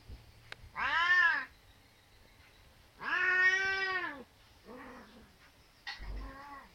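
Yellow Angora cat meowing: four calls, each rising and falling in pitch, a short loud one about a second in, a longer drawn-out one a couple of seconds later, then two fainter, shorter ones near the end. The owner takes the meowing for the cat calling for a mate.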